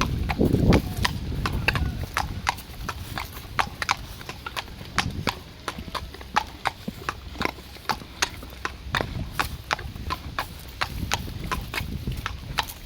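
Horse's hooves clip-clopping on hard ground at a walk, a run of sharp, irregular clops about three a second.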